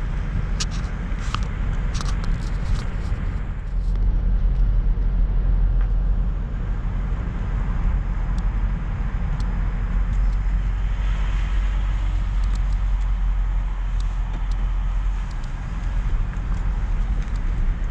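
Car driving, heard from inside the cabin: a steady low rumble of engine and road noise, with a few sharp clicks in the first few seconds.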